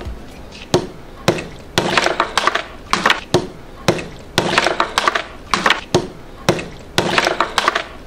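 A large ball of ice frozen in a balloon being smashed apart: a dozen or so sharp, hard strikes, some single and some in quick runs, as the ice breaks.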